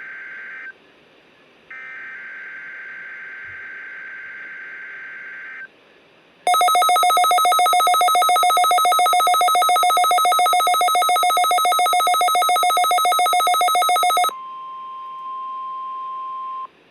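NOAA Weather Radio's Required Weekly Test tones. First come screechy, warbling digital SAME header bursts, one ending about a second in and another lasting about four seconds. Then a loud, rapidly pulsing two-pitch electronic alarm sounds for about eight seconds, followed by a steady single alert tone of about 1 kHz for a couple of seconds before the test announcement.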